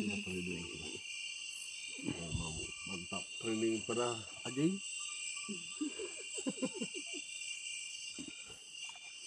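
Night insect chorus: a continuous high-pitched drone made of several steady tones. Low voices talk on and off beneath it.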